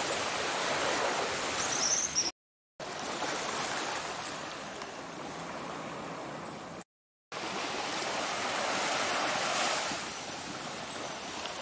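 Gentle surf washing on a sandy beach: a steady hiss of small waves that swells and eases slowly. The sound drops out completely twice, briefly.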